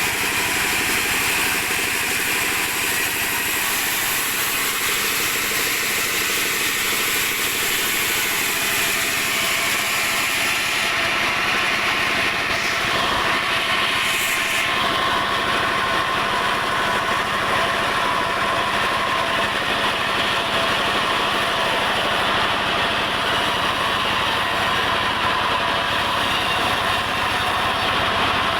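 Sawmill machinery running steadily, with a change in tone about halfway through.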